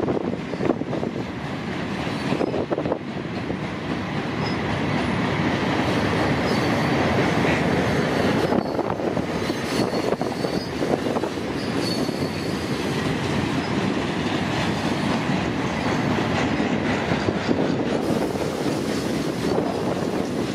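Freight cars of a CSX manifest train rolling past on the rails: a steady, continuous noise of wheels on track, with faint high tones now and then.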